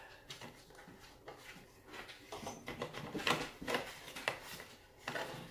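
Hands working a tail light wire and its plastic clip through the tail section under a Honda Grom's seat: light rustling with a few sharper clicks, busier and louder in the second half.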